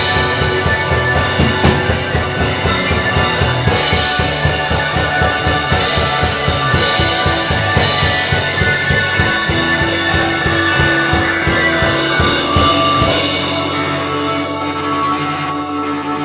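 Rock music played by a band with drum kit: steady drum hits under guitar and bass, then the drums stop about three-quarters of the way through, leaving held chords that start to fade near the end.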